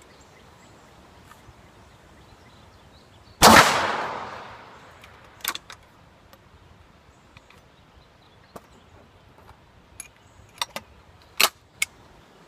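A single loud gunshot about three and a half seconds in, followed by a long echoing decay. Several fainter, sharp gunshot cracks come later, a pair just after it and a cluster near the end.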